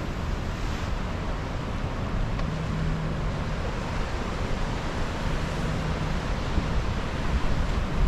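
Ocean surf washing and breaking over the rocks along a jetty, a steady rush of water, with wind buffeting the microphone.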